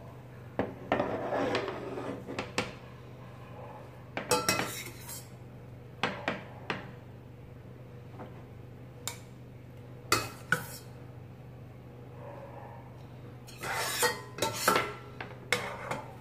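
Metal spoon scraping and clinking against a stainless steel saucepan while stirring a thick cream sauce, in short bursts every few seconds. A steady low hum runs underneath.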